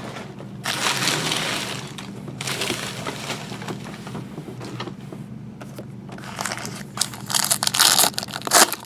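Trading card packs and wrappers being handled, rustling and crinkling in several bursts, the loudest near the end.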